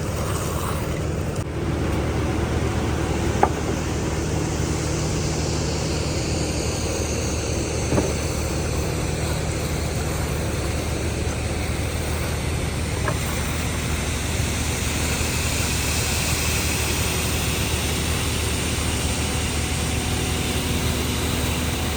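An engine running steadily, typical of machinery on a concrete pour and finishing job, with a few short knocks.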